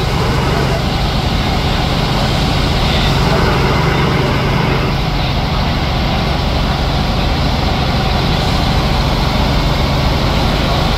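Steady engine and rotor noise of a light helicopter in flight, heard inside its cabin: a constant low drone with a rushing hiss over it.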